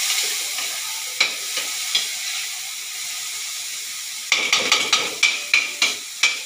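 Garlic, ginger and tomato sizzling as they sauté in a wok, stirred and scraped with a metal ladle. A few single sharp clacks of the ladle on the pan, then a quick run of about eight near the end.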